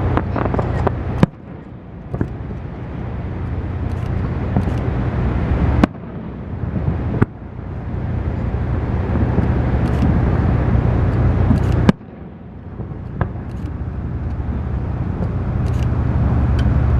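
Fireworks bursting: about four sharp bangs several seconds apart, with a few fainter pops, over a steady low rumble.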